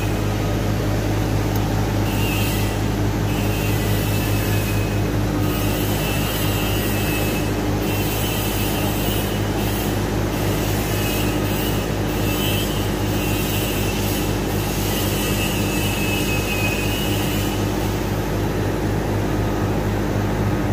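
Mobile crane's engine running steadily under load while it lifts a 15-ton steel A-frame, with a high whine that comes and goes every second or two.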